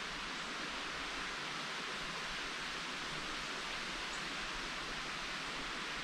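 A steady, even hiss of outdoor background noise, with no distinct events.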